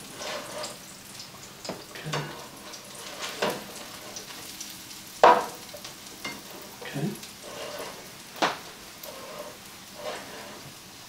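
Pancake batter sizzling steadily as it cooks in a hot pan, broken by a few sharp clicks, the strongest about five and eight and a half seconds in.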